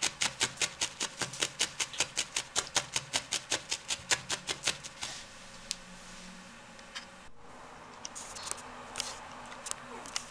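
Felting needle stabbing rapidly through wool into a foam sponge pad, about six short punches a second, stopping about five seconds in; a few scattered light clicks follow.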